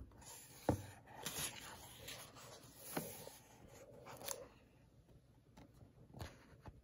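Pages of a hardback book being turned and handled: faint paper rustling with a few light taps and flicks.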